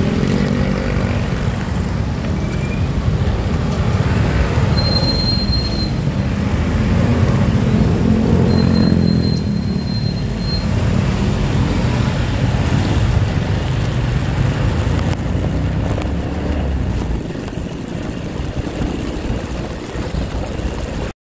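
Heavy rain on a wet street with road traffic: a steady low engine rumble under the hiss of rain and tyres on water. Two brief high-pitched squeals come about five and nine seconds in. The sound cuts off suddenly near the end.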